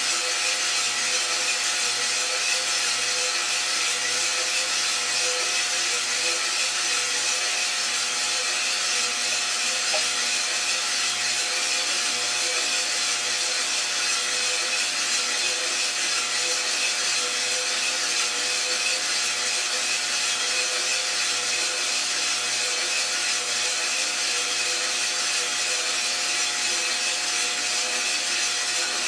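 iRoaster 600 drum coffee roaster running, its motor and fan giving a steady hum and hiss with a few held tones as pale beans tumble in the drum, no cracking heard yet.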